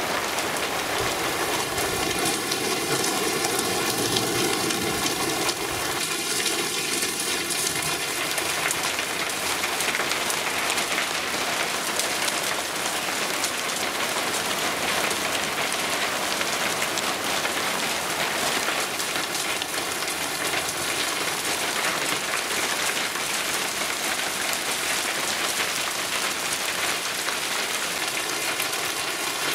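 Cloudburst downpour mixed with pea-sized hail, a dense steady rush of rain striking surfaces. For the first several seconds a humming tone with many overtones sounds along with it.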